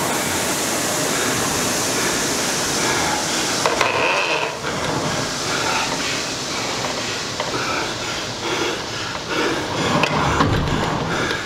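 Concept2 indoor rower's air flywheel whirring steadily during a hard interval piece. About four seconds in the whirr thins out, and irregular knocks follow.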